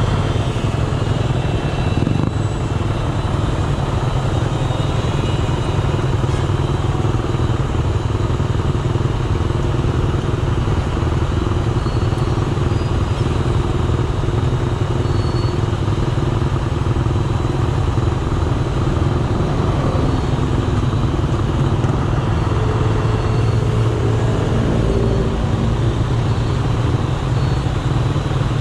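Idling engines of motorcycles and a bus in stalled traffic: a loud, steady low rumble.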